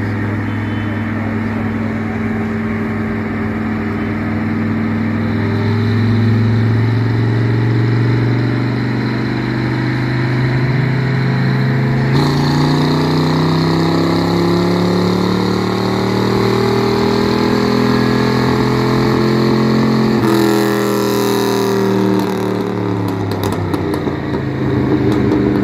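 Car engine pulling on a chassis dyno, its revs climbing steadily for about fifteen seconds with a sudden change in note about halfway through. About twenty seconds in the throttle is lifted: there is a brief hiss, the revs fall away, and there are a few sharp cracks near the end.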